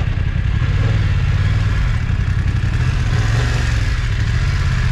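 Motorcycle engine pulling away from a standstill and accelerating, shifting up into second gear, with wind noise on the camera's built-in microphone.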